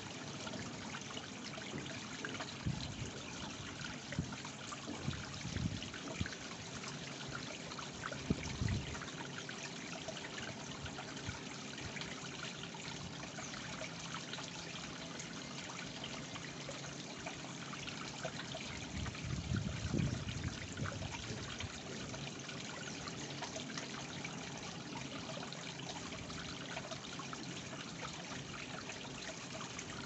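Small garden waterfall trickling and splashing steadily into a pond. A few brief low rumbles break in, the strongest about eight seconds in and a longer one around twenty seconds.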